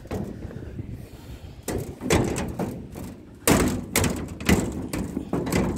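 Generator-room hood door of a shut-down WDS6AD diesel locomotive being shut and latched: a series of sharp bangs and thuds, about seven, starting a second and a half in.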